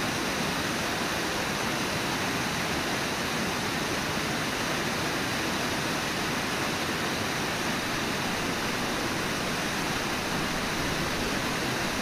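Brooks River water pouring over Brooks Falls: a steady, even rushing of falling water.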